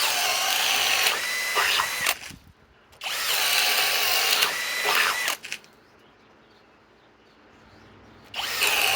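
Master Force brushless hammer drill boring wood with a spade bit in three runs: two of about two seconds each, then a short one near the end. Each time the motor's whine falls away as the drill cuts out under the load.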